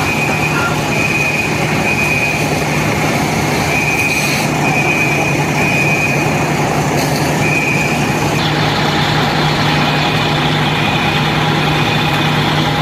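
Fire engine's diesel engine running steadily with a low drone, while a high-pitched beep repeats in short runs on and off.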